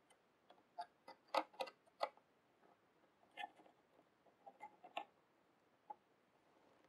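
Faint, irregular light clicks, about a dozen spread over several seconds, of small cutters and metal parts being handled while a rolled mesh insert in a Kayfun 5 clone atomizer's centre hole is lined up to be nipped off.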